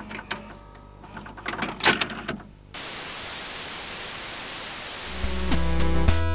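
VCR sound effects: mechanical clicks and clunks of a VHS tape being loaded, then a sudden steady TV static hiss about two and a half seconds in. Music with a deep bass cuts in about five seconds in.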